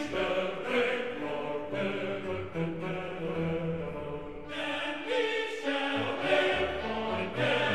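Background music: a choir singing sustained notes over an orchestral accompaniment.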